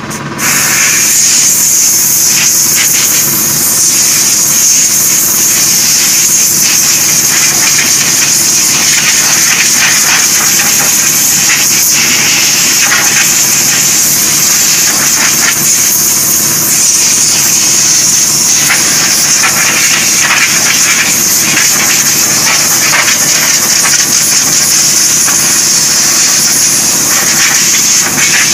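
Compressed-air spray gun hissing steadily as it sprays solution onto a chromed steel wheel rim in the spray-chrome process, starting about half a second in. A steady machine hum runs underneath.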